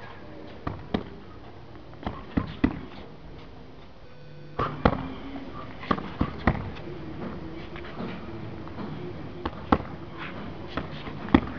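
Punches landing on focus mitts in quick combinations of two or three strikes, with pauses of a second or more between combinations.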